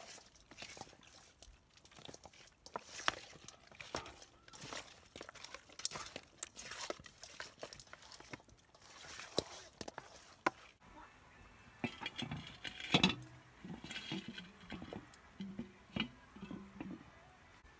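A bare hand mixing and squeezing chopped pig-head meat and bone in a dark sauce in a metal pot: irregular wet squelches, with clicks and knocks of the pieces against the pot.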